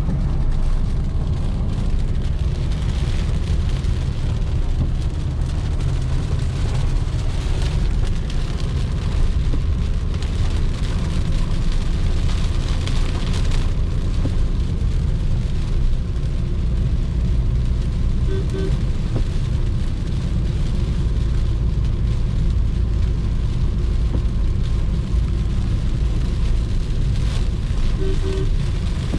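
Maruti Suzuki Ciaz driving on a wet road in rain: a steady low road-and-engine rumble with the hiss of rain and tyre spray.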